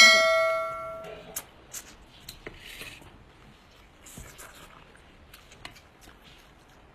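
A bell-like chime rings once at the start and fades away over about a second, the sound effect of a subscribe-button animation. After it come faint wet eating sounds and small clicks as a braised soft-shell turtle is sucked and chewed.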